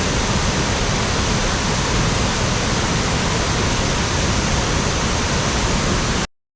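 Ryuzu Falls, a mountain waterfall, rushing steadily as a dense, even wash of water noise that cuts off abruptly about six seconds in.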